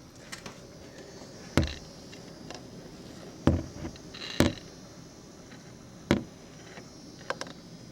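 A few sharp, irregular knocks, five or so spread over about eight seconds, over a faint steady hiss.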